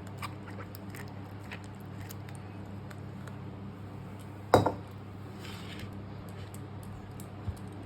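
Metal kitchenware being handled: small clicks and light knocks, with one sharp ringing metallic clank about halfway through, over a steady low hum.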